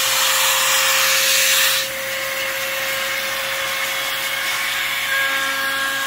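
Handheld cordless electric air duster and vacuum running in vacuum mode at its lowest setting, a brush nozzle sweeping a laptop's cooling fan: a steady motor whine under a rushing hiss that drops off about two seconds in. About five seconds in, more whining tones join in.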